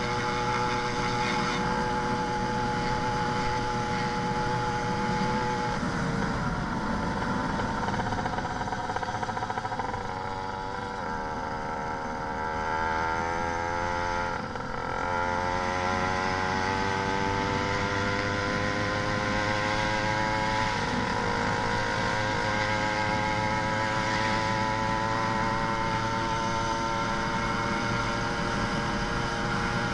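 YD 100 two-stroke motorized-bicycle engine with a big expansion pipe, running. Its pitch holds steady at first, then climbs in several rising sweeps with a brief dip about halfway, and holds steady again near the end. The carburetor has not been properly jetted, which the owner says makes the engine bog.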